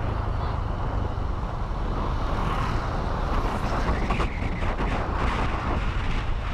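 Steady rumble of wind on the microphone and road noise from a vehicle moving along a street.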